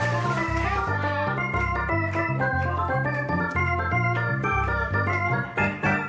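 Upbeat dance music with an electronic organ keyboard playing chords over a stepping bass line and steady percussion.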